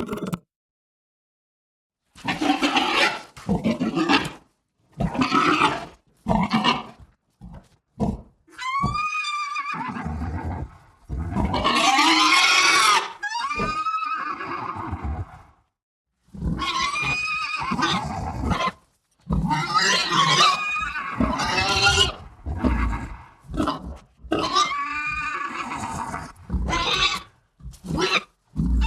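A run of separate creature calls, designed animal-like sound effects. Noisy grunts alternate with high squealing cries that bend in pitch, with short breaks between calls, after about two seconds of silence at the start.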